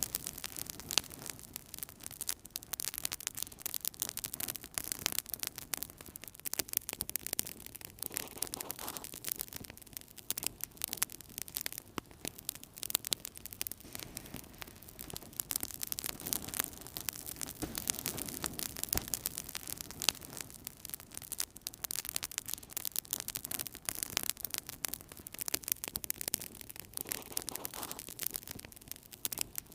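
Wood fire crackling in a fireplace: a constant run of irregular sharp pops and snaps over a soft, steady rush of flame.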